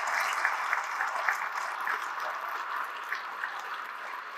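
Audience applauding, dying away to scattered claps.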